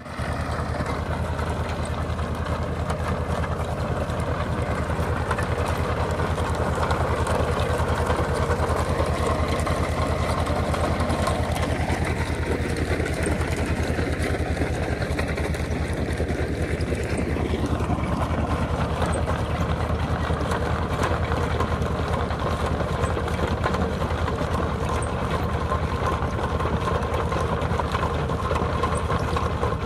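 Mini tractor's diesel engine running steadily under load as it drives a rear-mounted trencher cutting a narrow trench through sandy soil.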